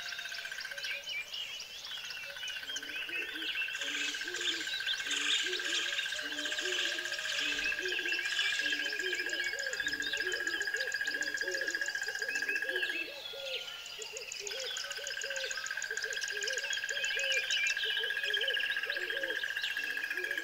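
A chorus of wild animal calls: a steady high trill with busy chirping above it, and many short low calls repeating several times a second. The trill drops out for a moment about two-thirds of the way through.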